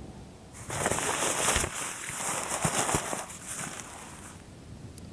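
Tent fabric rustling and crinkling as it is handled while the tent is pitched. It starts a little under a second in and dies away after about three and a half seconds.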